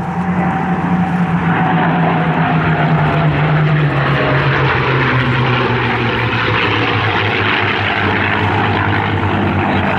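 Propeller-driven aircraft flying past, loud, its engine and propeller note dropping steadily in pitch as it goes by.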